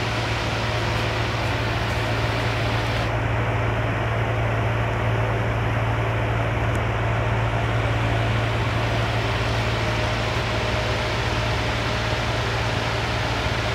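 An 18-inch iLiving wall-mounted exhaust fan running steadily: an even rush of air over a low motor hum. The higher hiss drops a little about three seconds in.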